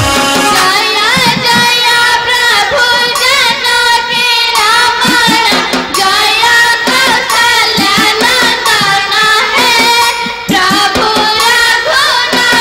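Odia devotional hymn in praise of Rama, a solo voice singing a wavering, sliding melody over steady hand-drum accompaniment.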